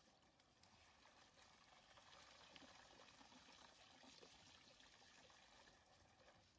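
Faint, steady splashing of water from a garden hose pouring over two baby monkeys and into a plastic tub of water.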